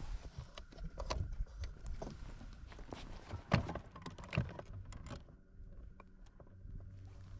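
Footsteps and knocks on the deck of a fibreglass bass boat, with gear rattling, as someone moves about the bow; the loudest thumps come about three and a half and four and a half seconds in. The clatter stops after about five seconds and a faint steady hum comes in.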